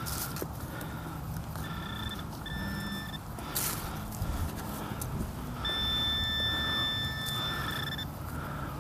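Handheld metal-detecting pinpointer sounding a steady electronic tone as it is probed into a freshly dug hole, signalling metal close by: two short tones a couple of seconds in, then a longer one of about two and a half seconds near the end. One dull knock of digging about halfway through.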